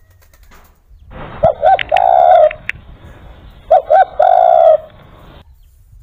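Spotted dove (derkuku) cooing twice, each call two short coos followed by one long held coo, the calls a little over two seconds apart.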